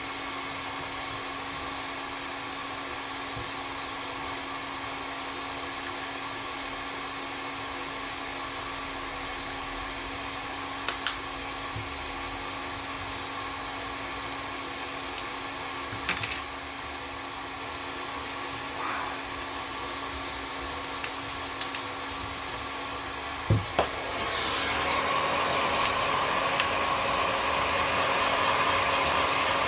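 Hot-air gun blowing steadily, with a few sharp clicks of tools against the phone. Its noise grows louder near the end.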